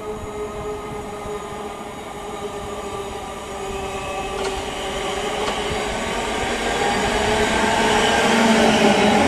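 Siemens Desiro City Class 707 electric multiple unit approaching and drawing alongside, its motors giving a whine of several steady tones over the rumble of wheels on rail. It grows steadily louder throughout, with two sharp clicks about a second apart around the middle.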